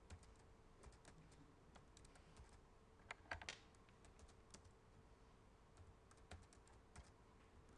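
Faint, scattered keystrokes on a computer keyboard, with a short cluster of clicks about three seconds in.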